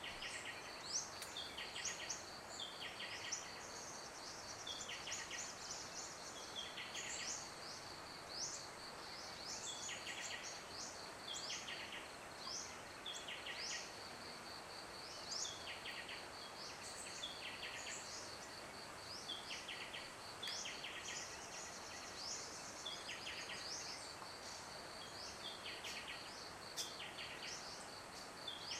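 Natural outdoor ambience: a steady, high-pitched insect trill with short chirping calls repeating about every second or so, over a faint background hiss.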